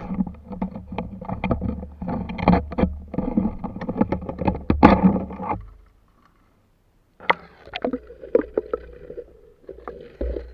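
Close handling noise of water splashing, sloshing and knocking with plastic-bag rustling as a freshly caught crab is put into a plastic bag. The sound cuts out for about a second and a half midway, then scattered knocks resume.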